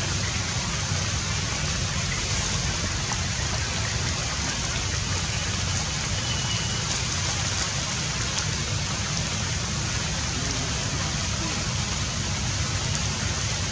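Steady outdoor background hiss with a low rumble underneath; a brief faint high whistle about six seconds in.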